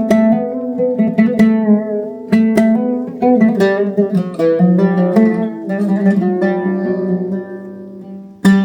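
An oud played solo: a melody of single plucked notes with sharp attacks, dying away near the end before a loud new note at the very close.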